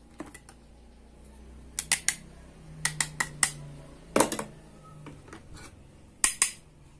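Plastic toy food and toy kitchen pieces clicking and clacking against each other as they are picked up and handled. The clicks come in small clusters, about ten in all, with the loudest just after four seconds.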